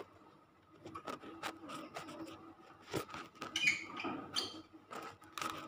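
Screwdriver working the metal terminal screws of miniature circuit breakers: a run of small clicks and scrapes, with a couple of short, higher-pitched squeaks about halfway through.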